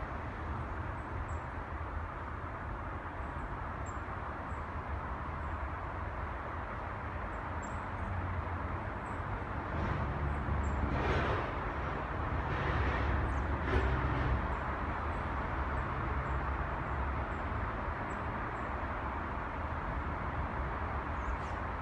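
Steady low rumble of distant city traffic, swelling louder about ten to fourteen seconds in.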